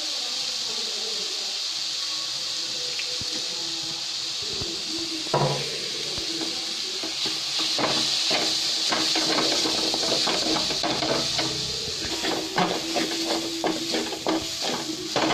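Fried rice sizzling in a metal kadai, with a steady hiss throughout. A wooden spatula scrapes and knocks against the pan as the rice is stirred, the knocks coming thick and fast from about five seconds in.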